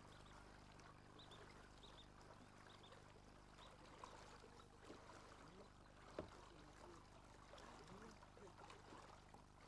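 Faint steady low hum of a boat's motor on the water, with a few faint high chirps in the first few seconds and a single click about six seconds in.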